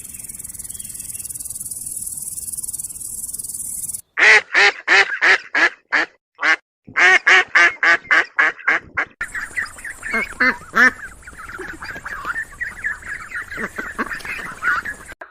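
A steady hiss for about four seconds, then a bird calling in quick runs of short, pitched calls, about six a second, followed by several birds calling together.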